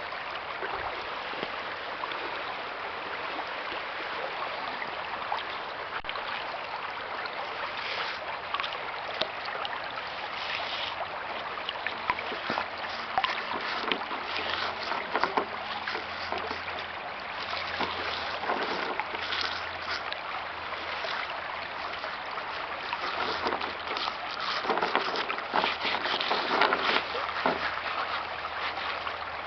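Steady rush of flowing river water, with scattered light scrapes and taps of hands molding cement putty onto the boat hull.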